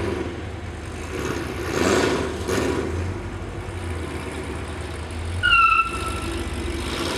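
Low, steady rumble of a 2007 Corvette Z06's 7.0-litre V8 through long-tube headers, X-pipe and Corsa Sport exhaust, rolling at low speed and swelling briefly about two seconds in. About five and a half seconds in there is a short, high squeal that falls slightly in pitch.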